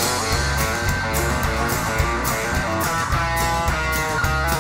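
Country-rock band playing an instrumental passage with no singing: electric guitar and strummed acoustic guitar over bass and a steady drum beat.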